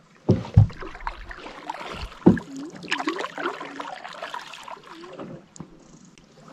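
Canoe being paddled: paddle strokes and drips in the water, with a few sharp knocks against the canoe's hull, the loudest ones early and again a little after two seconds.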